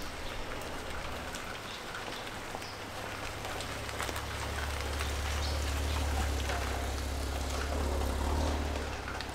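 Steady rain falling, with many fine drop ticks. A low traffic rumble swells from about four seconds in and eases off near the end, like a vehicle passing.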